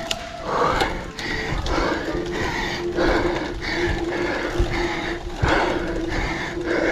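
A cyclist panting and gasping hard while climbing a very steep grade at walking pace, close to his limit, with a loud breath about every half second to second.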